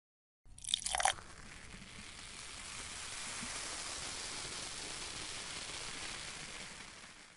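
Red liquid poured onto white powder in a glass beaker: a short splashing pour about half a second in, then a steady fizzing hiss as the mixture foams and bubbles, fading near the end.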